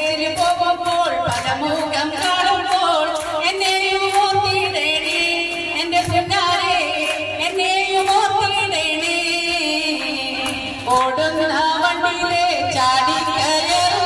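Music with singing voices.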